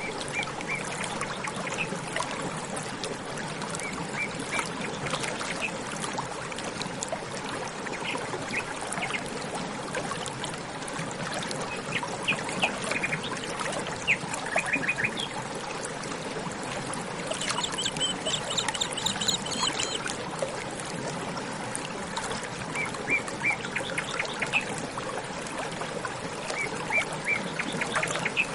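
Water trickling steadily, with small birds chirping in short quick series of notes throughout. A busier, higher-pitched run of bird calls comes about two thirds of the way in.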